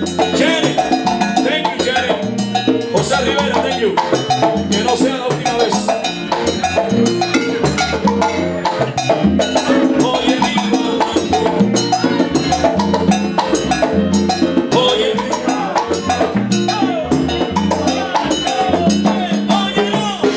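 Live salsa band playing: a stepping bass line, horns including trombone, Latin hand percussion, and a singer's voice over the top.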